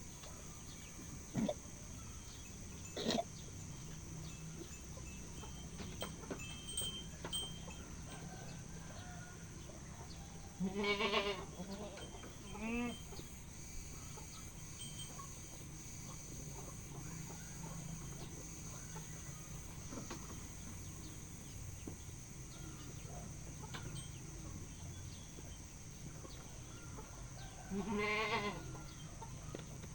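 Goat bleating: a quavering bleat about eleven seconds in, a shorter one just after, and another near the end. Two short sharp clicks come in the first few seconds.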